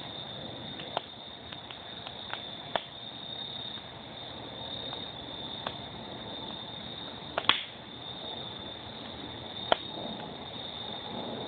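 Wood fire burning in a metal fire pit, crackling with a few sharp pops over a steady hiss; the loudest pops come about two-thirds of the way through and again near the end.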